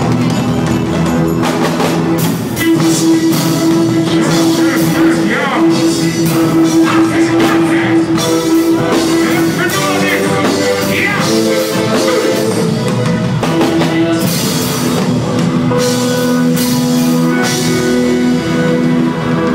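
Live reggae band playing, with drums and held keyboard or bass notes, and a voice singing at times over it.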